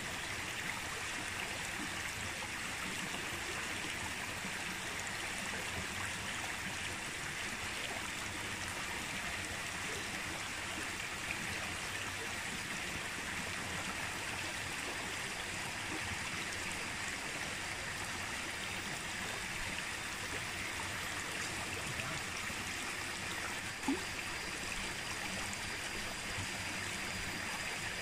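Steady rush of a shallow stream's flowing water, with one small knock near the end.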